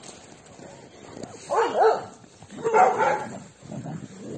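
A dog barking in two short bursts, about a second apart, near the middle.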